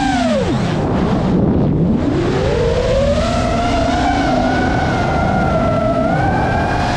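GEPRC Mark 5 FPV quadcopter's brushless motors whining over a rush of air noise. The pitch drops steeply in the first second or so as the throttle is cut for a dive, then climbs back over the next two seconds and holds fairly steady, wavering slightly as the throttle is worked.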